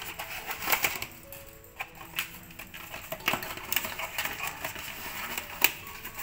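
Clear plastic packets of dried herbs crinkling and rustling as they are pulled from a paper box and handled, with irregular sharp crackles and the loudest crackle a little after halfway.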